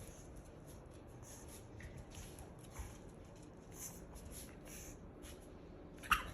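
Soft, irregular rustling and scuffing as a pug puppy moves about, with one short, sharp, louder sound near the end.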